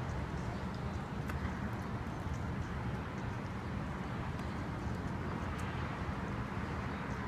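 Steady outdoor background noise with a low, flickering rumble and faint short high ticks scattered through.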